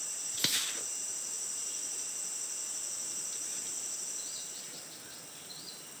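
A steady high-pitched drone of insects, easing slightly near the end. About half a second in comes a single short, sharp puff, which is a dart being shot from a blowpipe.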